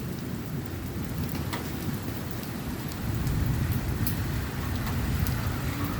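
Heavy rain pouring down in a thunderstorm, with scattered sharp taps; a low rumble of thunder builds from about halfway through.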